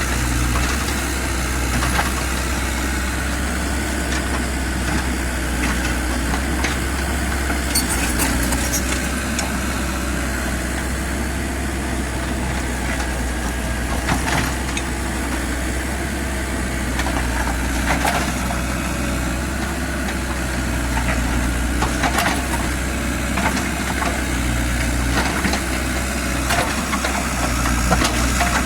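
Kubota U50 mini excavator's diesel engine running steadily, with scattered short metallic knocks every few seconds.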